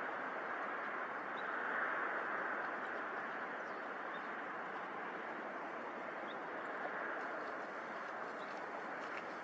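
Steady outdoor ambience: an even hiss that swells slightly about two seconds in, with a few faint, short bird chirps.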